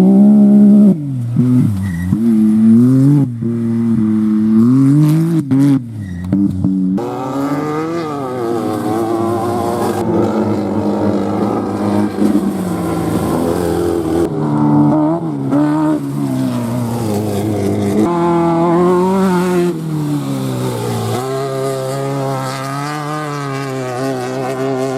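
Off-road race vehicles' engines revving hard, the pitch climbing and dropping through gear changes. The sound changes abruptly every few seconds as one vehicle gives way to another.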